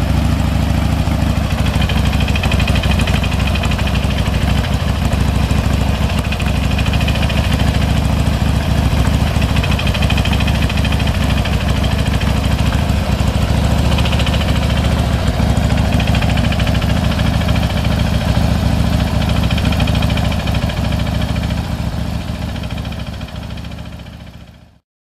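2005 Harley-Davidson Dyna Low Rider's Twin Cam 88 V-twin idling steadily with an on-and-off clattering rattle. The rattle comes from a worn front camshaft, stepped where it runs in its inner bearing. The sound fades out near the end.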